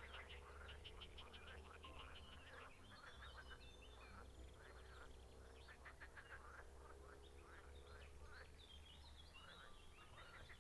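Faint chorus of frogs calling from a pond, many rapid rattling series of croaks overlapping, over a low steady rumble.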